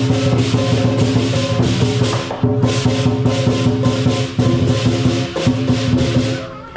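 Lion dance percussion: a drum beaten rapidly with clashing cymbals and a ringing gong, dying down near the end.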